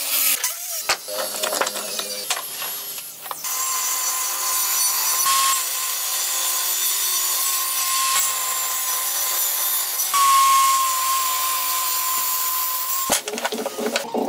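Power saws cutting wood: a miter saw at the start, then a table saw running with a steady whine for about ten seconds, cut off suddenly near the end.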